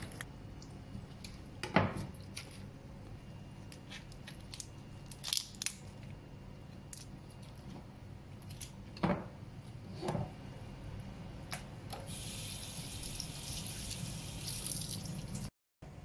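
Scattered knocks and handling noises as raw prawns are peeled on a plastic cutting board by a steel sink. About twelve seconds in, a tap runs for a few seconds, all over a low steady hum.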